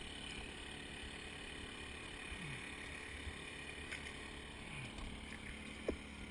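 Steady motor hum on a bowfishing boat, with a few faint clicks and a light knock near the end.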